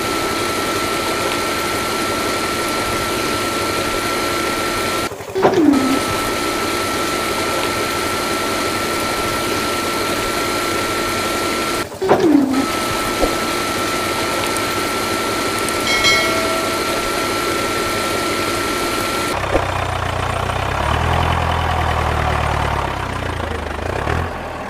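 Small DC electric motors of a toy car-wash rig running steadily with a high, even whine over a hissing hum, briefly cut off twice. For the last few seconds a deeper, throbbing motor sound takes over.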